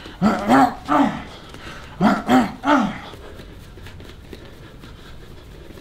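A man's short grunts as he throws punches while shadowboxing: three quick grunts near the start and three more about two seconds in. After that there is only faint room sound.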